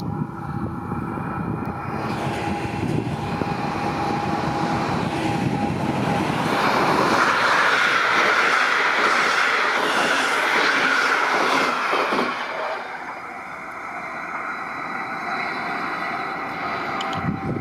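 Electric train with red double-deck coaches passing close by: wheel and rail noise with a rush of air, building to its loudest in the middle and easing off a couple of seconds later.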